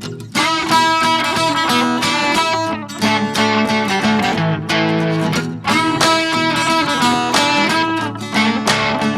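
Background music led by guitar, plucked and strummed at a steady pace.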